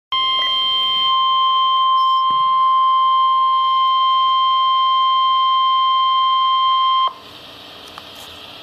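NOAA Weather Radio 1050 Hz warning alarm tone: a single steady, loud beep held for about seven seconds, signalling that a weather warning is about to be read. It cuts off suddenly, leaving faint radio hiss.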